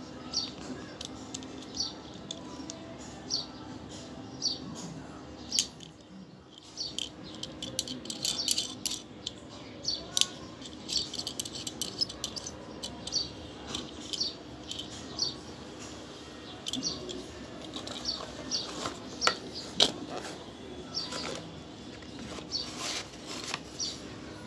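Repeated sharp clicks and taps from handling a metal carabiner key-ring lighter, denser from about five seconds in. Behind them a bird chirps over and over, roughly once a second.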